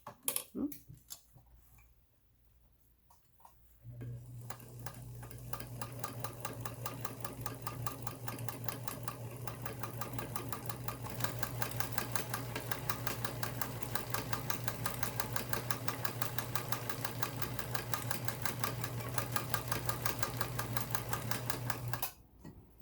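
Vintage Electra SX4000 sewing machine running at a steady speed and sewing a decorative pattern stitch, its motor humming under a fast, even patter of stitches. It starts about four seconds in after a few faint clicks and stops near the end.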